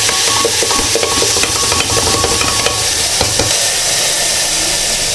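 Wet onion-tomato masala paste poured into hot oil and cumin in an aluminium pressure cooker, sizzling and spluttering loudly. Light knocks and scrapes sound in the first three seconds or so as the blender jar is emptied against the rim.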